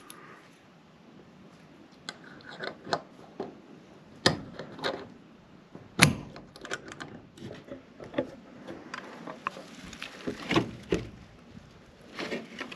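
Small metal clinks and clicks of a light steel safety chain and screw eye being handled and twisted into wooden door boards, with a scatter of sharper knocks of metal on wood, the loudest about six seconds in.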